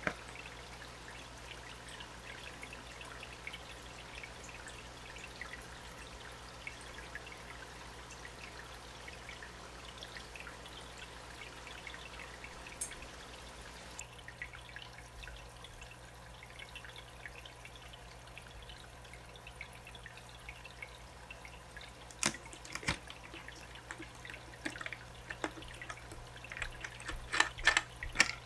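Water trickling and splashing into an aquarium tank as it is filled. After it stops, a few sharp plastic clicks and knocks come from handling a canister filter's pump motor, growing thicker near the end.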